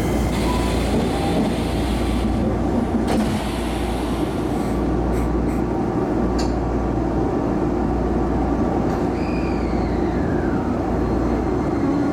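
Shizuoka Railway A3000-series electric train standing at a platform, heard from inside its rear cab: a steady hum and rumble from the train's onboard equipment, with a few light clicks and a falling whine about nine seconds in.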